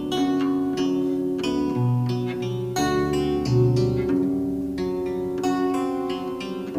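Background music: plucked guitar-like notes over a steady bass line.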